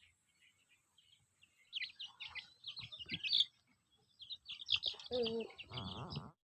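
Young chickens peeping in a dense flurry of short, high chirps, joined near the end by a lower, harsher call from an older chicken. The sound cuts off suddenly shortly before the end.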